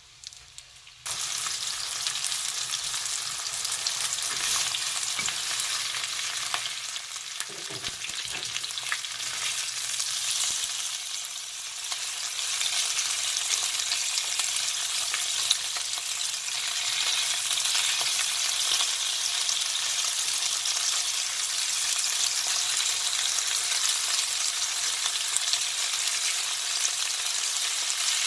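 Food frying in a hot pan, sizzling steadily; the sizzle starts abruptly about a second in.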